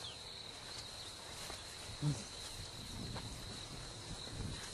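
Insects trilling steadily at one high pitch. A brief, low, voice-like sound comes about two seconds in.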